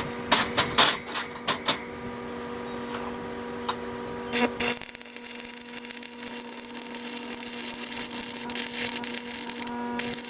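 Metal being worked in the shop: a few sharp knocks, then from about five seconds in a steady, high grinding hiss, typical of grinding down welds on the forged railroad-spike piece.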